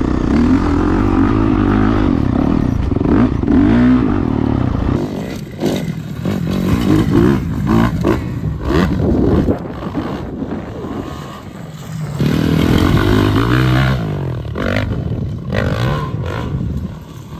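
Dirt bike engines revving and accelerating, the pitch rising and falling as the riders throttle on and off, with loose dirt and gravel scattering from the rear tyre.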